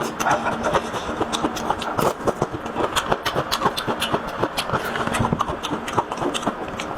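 Close-miked chewing and wet mouth smacking while eating: rapid, irregular clicks and smacks, with a faint steady hum underneath.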